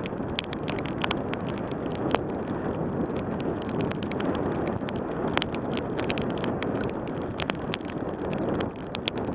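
Steady rush of wind on the microphone and bicycle tyres on a wet road while riding in rain, with frequent small sharp ticks throughout.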